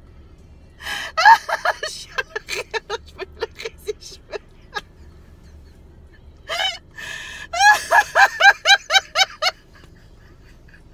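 A woman laughing out loud in two long bouts of rapid ha-ha-ha pulses, the first fading out about five seconds in and the second following after a breathy pause. This is laughter-yoga laughter, laughing on purpose without a reason.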